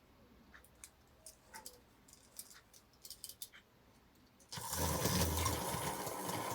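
Wells Brimtoy clockwork drummer toy: faint scattered clicks as the clockwork motor is wound, then about four and a half seconds in the motor is let go and the toy starts running with a steady, much louder rattling.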